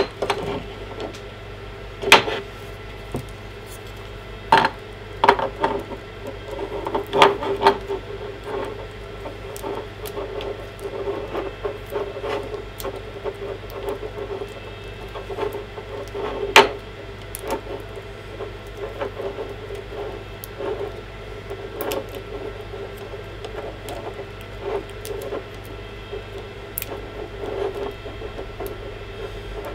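Hands handling a small charging cable and plastic parts on a tabletop: scattered light clicks and knocks, a few sharper ones in the first half, over a steady low hum.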